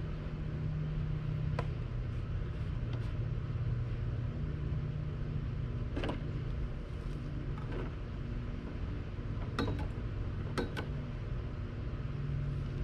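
A steady low mechanical hum, like a motor running, with a handful of short, sharp clicks and knocks scattered through it.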